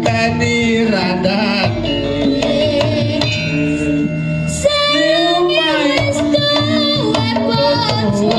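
Young sinden singing a Javanese campursari song in duet with live gamelan and hand-drum accompaniment.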